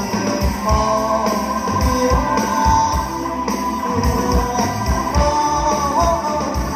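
Band playing an instrumental passage of the song: a lead guitar melody with a few bent notes over bass and a steady drum beat.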